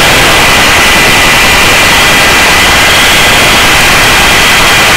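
Hovering search-and-rescue helicopter heard as a loud, steady hiss like static, with a thin steady whine high up.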